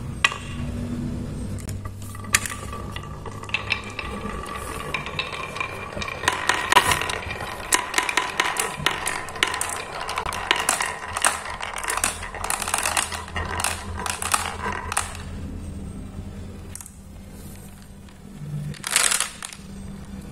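Marbles rolling down a wooden marble run and clicking against wooden dowel pegs, with a steady rolling rumble. The clicking is thickest in the middle, thins out later, and there is a short louder clatter near the end.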